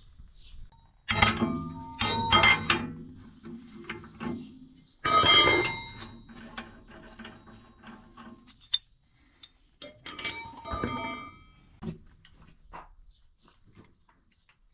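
Series of metal clanks and knocks, each with a brief ringing, from tools and steel parts while a heavy rotary cutter blade is worked loose; the loudest clank comes about five seconds in.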